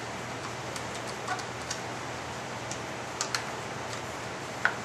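Scattered light clicks and taps of a screwdriver and metal parts as the stock screws of a Marlin Model 795 rifle are driven in, over a steady hiss. The sharpest click comes near the end.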